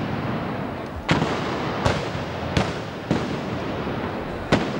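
Five black-powder blank shots from the festival arquebuses, fired one after another at uneven intervals over steady background noise. The first four come about half a second to three-quarters of a second apart, and the last follows after a longer gap of about a second and a half.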